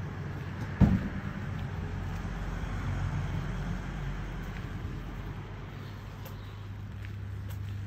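Street ambience of road traffic: a steady low hum under a haze of road noise that swells a little and fades. A single sharp knock comes about a second in.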